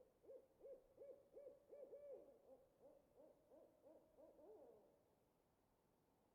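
Faint owl hooting: a rapid series of short arched hoots, about three a second, the last few sliding down in pitch before the calling stops about five seconds in.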